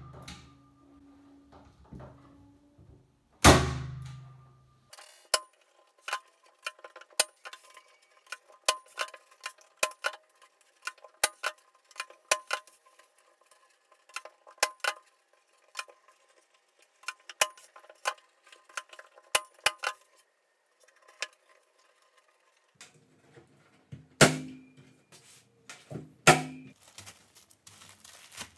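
Electric staple gun firing staples through jute canvas into a wooden stretcher frame: a sharp shot a few seconds in and two more near the end. Between the shots comes a long run of light, irregular clicks and taps.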